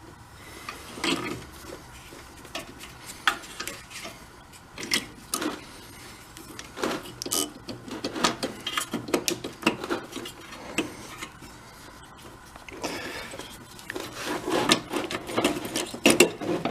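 Hand tools working on a small engine: irregular clicks, taps and scraping of metal tools against engine parts while screws and parts are loosened. The strokes come faster and closer together over the last few seconds.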